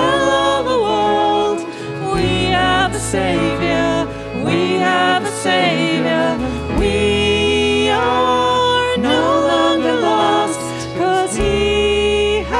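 Live worship band playing a song: women's voices singing the melody into microphones over acoustic guitar, violin and keyboard.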